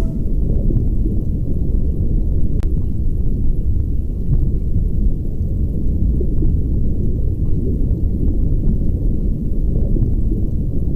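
Steady low rumbling noise with faint scattered ticks and one short click about two and a half seconds in.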